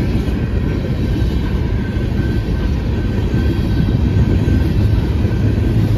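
Empty coal train's cars rolling past at close range, a steady loud rumble of wheels on rail. Near the end a deeper steady hum grows as a locomotive in the train draws near.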